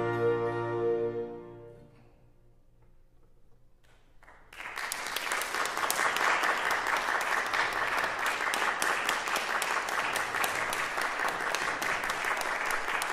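A Baroque chamber ensemble of strings, flutes, bassoon and harpsichord holds its final chord, which dies away over the first two seconds. After a brief hush, audience applause breaks out about four and a half seconds in and carries on steadily.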